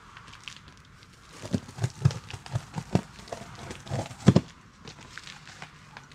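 Pocket knife cutting and prying through heavy corrugated cardboard along a stapled box seam: irregular scrapes and knocks starting about a second and a half in, loudest about four seconds in.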